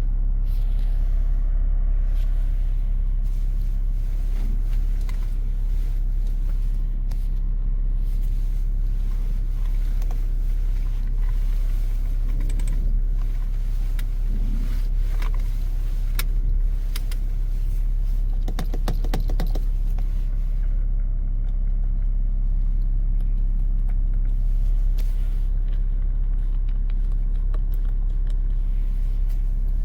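BMW F07 5 Series GT running steadily with a low hum, with scattered small clicks and a short run of rapid clicking about two-thirds of the way through.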